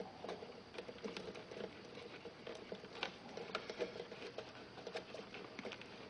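Faint, irregular small clicks and scratching as fingers handle stripped wires and a plastic Posi-Tap tap connector, fitting it onto an orange feeder wire.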